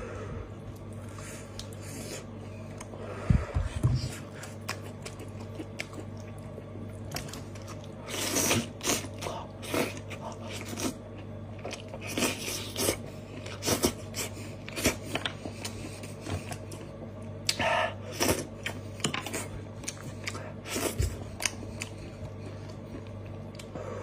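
Close-up sounds of a steamed sheep's head being eaten by hand: chewing and biting, and the meat sucked off the bone, with many short smacks from about eight seconds in until near the end. A single low thump about three seconds in.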